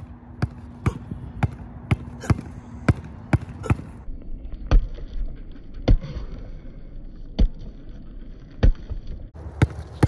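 Basketball dribbled on an outdoor concrete court, the bounces coming about two a second. About four seconds in they give way to slower, heavier thuds roughly every second and a half, and near the end the quicker bounces return.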